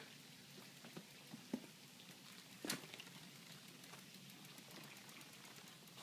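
Quiet clicks and knocks from a bicycle being wheeled out through a doorway, the loudest about two and a half seconds in.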